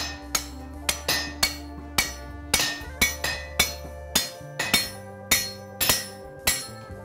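Hand hammer striking a steel drift that is being driven through a punched hole in hot steel on an anvil, to widen the hole: a steady run of sharp metallic blows, about two a second, each ringing briefly.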